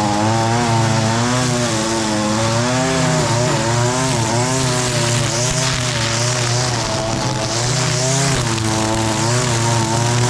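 Echo SRM-225 gas string trimmer's small two-stroke engine running at high revs, its pitch wavering up and down, while the spinning line cuts through thick overgrown grass with a steady hiss.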